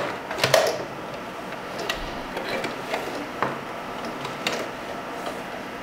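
Singer 4423 heavy-duty sewing machine stops running right at the start, followed by a handful of scattered light clicks and taps as the wig and hair are handled and repositioned at the machine's presser foot.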